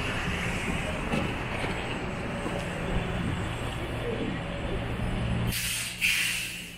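City street traffic: vehicles running with a steady low hum, and a loud hiss lasting about a second near the end.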